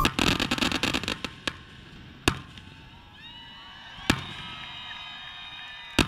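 Aerial fireworks: a quick run of crackling pops, then sharp shell bursts about every two seconds, with faint whistles gliding up and down between them.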